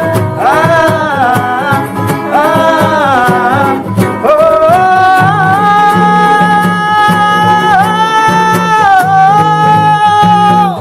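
A singer's wordless, melismatic vocal run over strummed acoustic guitar, settling about four seconds in into one long held note that breaks off at the end.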